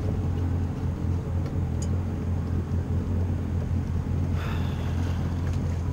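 Yamaha 190 FSH jet boat's engine running steadily, a low even hum under wind and water noise.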